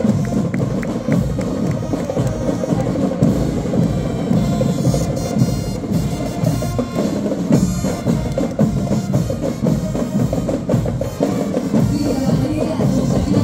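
School marching band playing a parade march, its drums keeping a steady beat.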